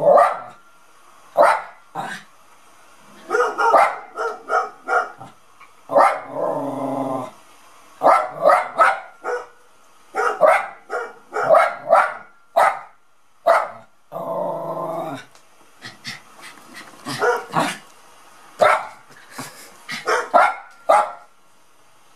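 Small white dog barking over and over in short, sharp, irregularly spaced barks, with a few longer drawn-out calls of about a second between them.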